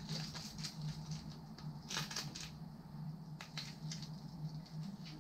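Lizard Skins adhesive bat grip tape being wound onto a bat handle and peeled from its backing: irregular light crackling and crinkling, with a denser burst about two seconds in. A steady low hum runs underneath.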